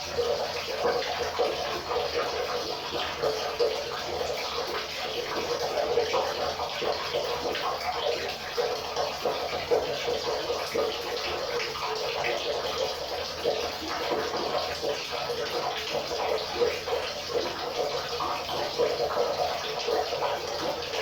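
River water flowing, a steady babbling rush with constant small splashes.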